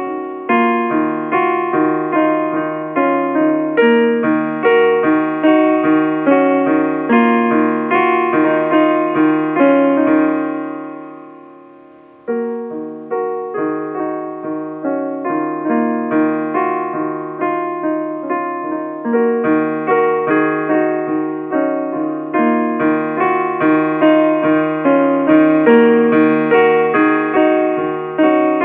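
Instrumental keyboard music in a piano sound: a steady stream of struck notes and chords. About ten seconds in, a chord rings out and fades for roughly two seconds before the playing starts again.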